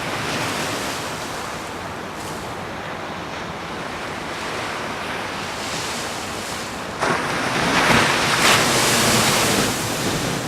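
Ocean surf washing steadily; about seven seconds in a louder wave breaks with a sudden rush that lasts a couple of seconds and then eases off.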